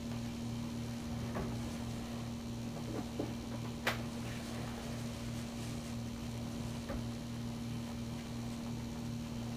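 A steady low electrical hum runs throughout, with a few faint clicks; the sharpest comes about four seconds in.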